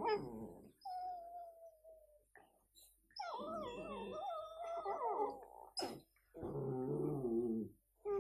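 Whippet puppies vocalizing while play-wrestling: a long falling whine about a second in, then longer spells of wavering, pitched howl-like calls.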